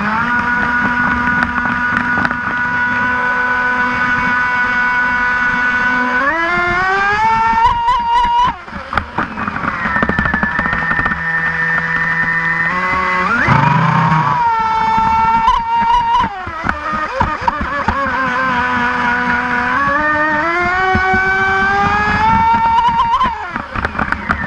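Brushless electric motor of a mono RC racing boat whining at speed. The whine holds steady for about six seconds, then rises and falls in pitch several times with the throttle, with a sharp climb a little past halfway and a drop near the end.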